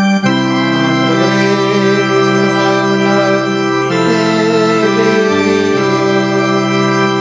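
Organ playing sustained chords, which change a few times, as a musical interlude in a church service.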